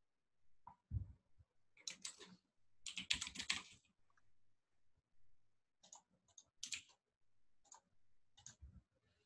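Computer keyboard typing in short bursts: a quick run of keystrokes about two seconds in, a faster run about three seconds in, then a few single key presses spaced a second or so apart. A soft low thump comes just before the first burst.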